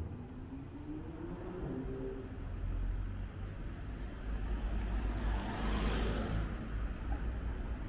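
A car driving past on a city street, its engine and tyre noise swelling to a peak about five to six seconds in and then easing. A few short high bird calls are heard in the first two seconds.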